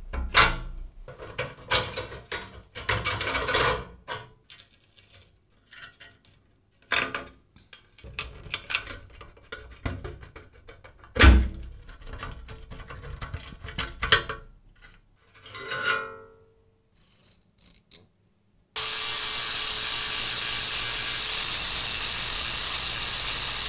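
Pliers and hand tools clicking, scraping and knocking on rusty steel scooter parts, with one sharp metal knock about eleven seconds in and a brief metallic ring near sixteen seconds. From about nineteen seconds an abrasive grinding disc grinds steadily with a high whine, taking the head off a rivet on a rusty steel bracket.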